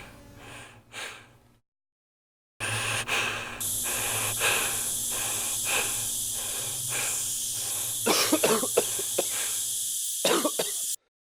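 A person coughing and breathing hard in repeated short bursts over a steady hiss, ending with a louder cluster of coughs before the sound cuts off abruptly.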